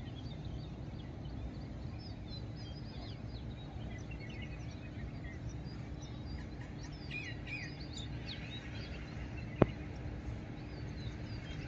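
Many small birds chirping over a steady low rumble, with a single sharp click about two-thirds of the way through.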